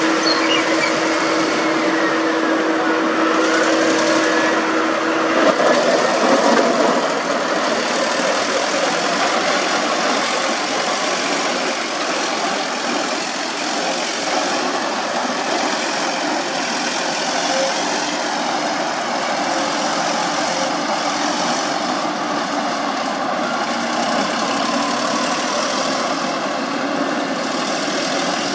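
Road construction machinery running steadily, with a steady engine-like hum. A steady tone in it stops about five and a half seconds in.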